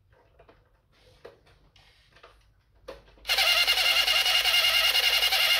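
Small electric motor in a customized toy truck starts abruptly about three seconds in and runs with a loud, steady whir that has a fast flutter, after a few faint clicks.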